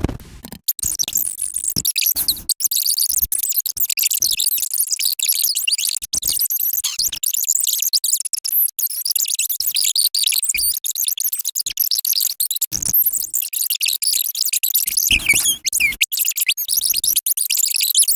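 A rapid-fire string of short sound effects played at ten times normal speed, mostly high-pitched chirps and squeaks that change pitch constantly, with short low thuds now and then.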